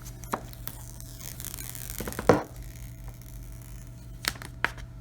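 Hands handling a smartphone and its cardboard packaging: a few small clicks, and a rustle of paper or plastic lasting about a second that ends in a sharp knock.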